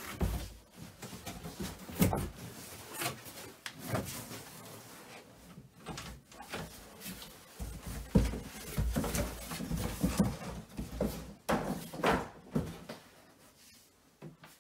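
Irregular knocks, thumps and scuffs from a large mattress and its cardboard being shoved and shifted about, with heavier low thuds about two-thirds of the way through.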